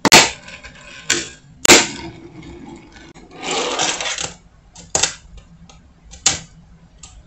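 Fingerboard freshly fitted with thick wheels being ridden on small ramps and a stair obstacle: sharp clacks of the board hitting and landing, the loudest near the start and at about two seconds in, with a second of wheels rolling along the ramp in the middle.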